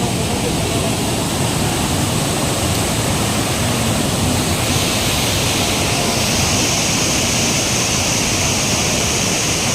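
Waterfall rushing: a loud, steady wash of falling water, its hiss growing brighter about halfway through.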